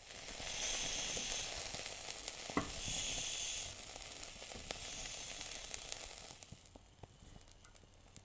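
Hissing with fine crackles that starts suddenly and swells in three surges about a second long each, fading away near the end.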